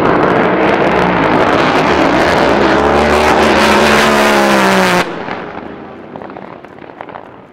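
Two Top Fuel drag boats launching side by side, their supercharged nitromethane-burning V8s at full throttle in a very loud, rasping blast that starts all at once. The engine pitch sags slightly as they run away down the course, then the sound drops sharply about five seconds in and fades.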